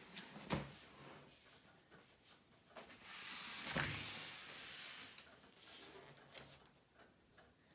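A large panel of nine framed mirrors on a foam-board backing being flipped over on a wooden table: a sharp knock about half a second in, a long swish as the panel swings over midway, then a few light taps as it is laid down face up.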